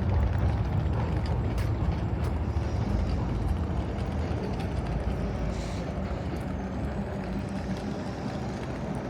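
Steady low rumble of a passing vehicle, easing slightly over several seconds, with a few faint clicks.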